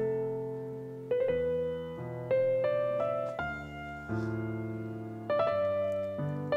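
Background piano music: slow chords and melody notes, each struck and then left to fade, with a new one about every second.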